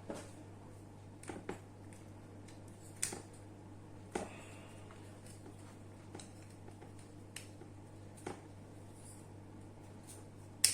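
Sparse, sharp clicks and light taps of small hard parts being handled, about nine in ten seconds with the loudest at the end, over a steady low hum.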